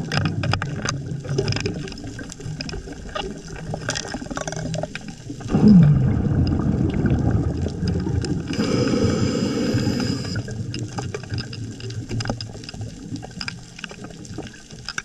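Scuba diver's exhaled breath bubbling out of the regulator underwater, a long loud surge of bubbles starting about halfway, with scattered short clicks and taps throughout.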